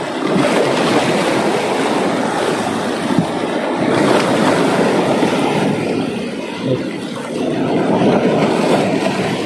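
Sea waves washing and splashing over shoreline rocks: a continuous rushing surf that swells and eases a few times.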